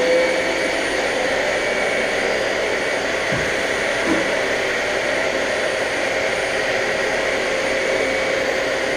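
Vacuum cleaner running steadily, its motor giving a constant whine over a rushing airflow hiss.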